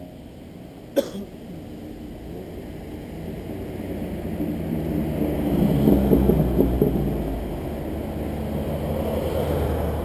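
A classic sports car's engine approaching and passing close through a bend, building to its loudest about six seconds in and then fading, with other traffic coming up behind. A single sharp click sounds about a second in.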